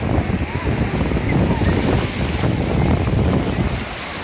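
Shallow surf washing in over wet sand at the water's edge, with wind buffeting the microphone in a loud, steady rumble.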